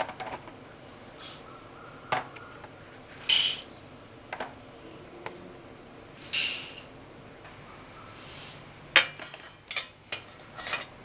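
Whole spices and seeds poured from plastic spice-box cups onto small stainless steel plates: a few short rattling pours of grains hitting metal, with sharp clinks of the plates and cups in between.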